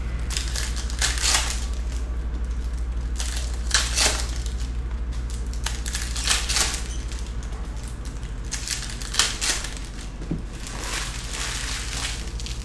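Foil trading-card pack wrappers crinkling and tearing as they are ripped open and peeled off, in about five separate bursts, over a steady low hum.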